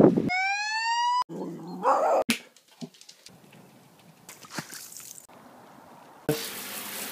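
Beagle puppy gives one rising, high-pitched howl lasting about a second, followed by short bursts of rustling and a second of steady hiss near the end.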